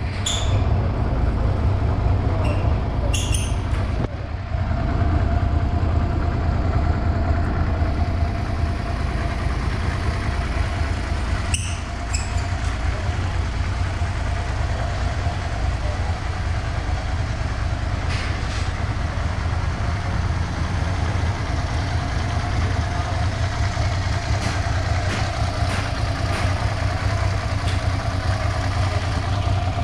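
2003 Suzuki SV650S's 645 cc V-twin engine idling steadily, with a few light clicks about three and twelve seconds in.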